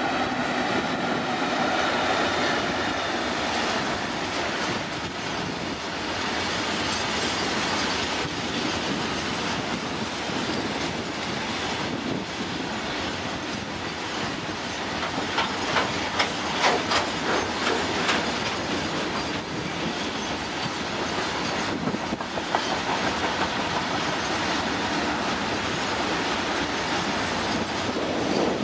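Electric-hauled freight train passing at speed. The pair of electric locomotives goes by at the start, then a long rake of open freight wagons rolls past with a steady rumble. A run of sharp wheel clicks stands out in the middle.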